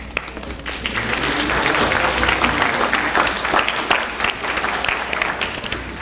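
Audience applause in a school hall, building up about half a second in and thinning out near the end.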